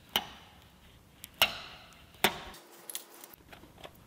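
Sharp clicks and ticks of a plastic car emblem being worked loose from its adhesive on the tailgate: three sharp clicks in the first two and a half seconds, then a few fainter ticks.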